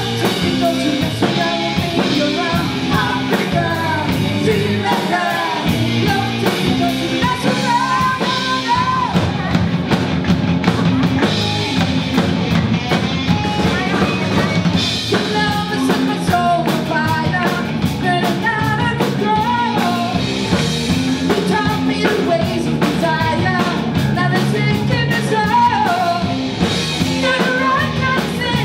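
Live rock band playing: a woman singing lead over electric guitar and a drum kit.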